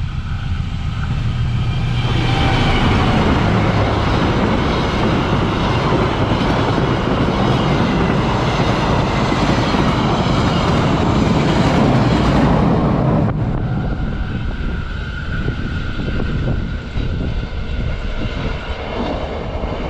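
Malabar passenger train, hauled by a diesel-electric locomotive, approaching and passing close by at speed: a loud rush of engine, wheel and rail noise that builds over the first two seconds and holds for about ten seconds. About thirteen seconds in, it cuts abruptly to a quieter rumble.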